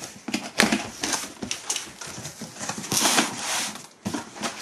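Cardboard shipping box being slit open along its packing tape with a box cutter and its flaps pulled open: a run of scrapes, taps and cardboard rustles, with a longer scraping noise about three seconds in.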